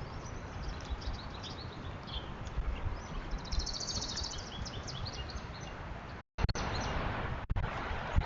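Small birds chirping and giving a fast trill over steady low outdoor background noise. The sound cuts out briefly about six seconds in, then returns with the background louder.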